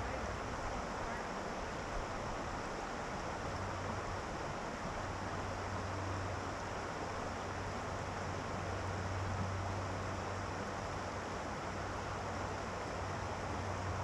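Steady rushing hiss of shallow river water flowing over rocks, with a low steady hum underneath.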